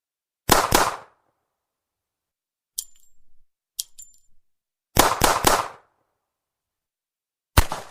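.38 Special revolver firing: a rapid string of shots about half a second in, another rapid string about five seconds in, and a single shot near the end. Between them come two quieter sharp metallic clicks with a brief high ring.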